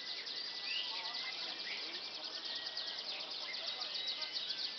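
Domestic canary singing continuously in fast, rattling trills, with a thin held whistle note and a few short rising chirps over them.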